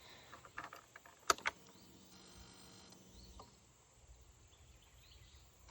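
Honda Rancher 420 ATV keyed on: a few sharp clicks, then the electric fuel pump hums faintly for about a second as it primes and stops, followed by another click.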